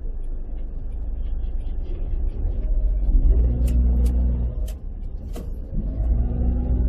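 Car driving: a steady low road rumble with the engine's tone rising as it speeds up, easing off briefly and picking up again near the end. A few sharp clicks come about halfway through.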